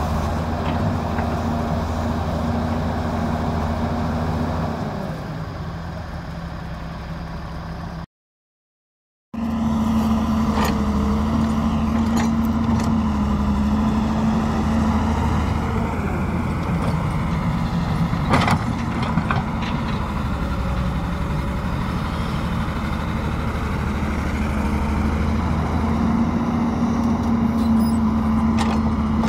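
Diesel engines of a Doosan wheeled excavator and a farm tractor running steadily while the excavator digs and loads soil into a trolley, with a few sharp knocks. The sound cuts out for about a second at an edit, about eight seconds in.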